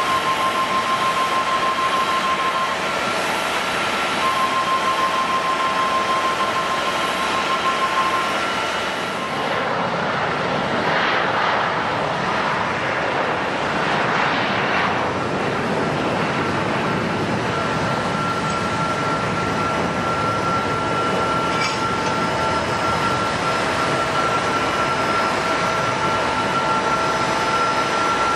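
Boeing 777-200 airliner's turbofan engines running, a steady rush with high whining tones. A swell of rushing noise passes about ten to fifteen seconds in, and after it the whine holds on a slightly higher tone.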